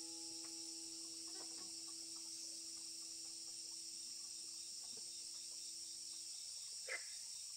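Steady, high-pitched chorus of insects chirring. A single held low tone fades out about six and a half seconds in, and a short sharp sound comes near the end.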